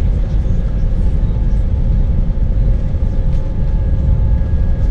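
Cabin noise of an Airbus A319-132 with IAE V2500 engines rolling along the runway on the ground: a steady heavy rumble with a faint steady engine whine above it.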